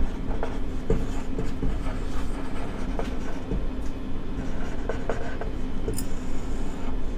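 Marker writing on a whiteboard: short scratchy strokes and taps of the nib as letters are written, then longer strokes near the end as the words are underlined.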